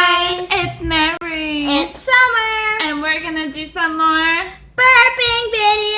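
A young girl singing a short tune in a series of held, sustained notes.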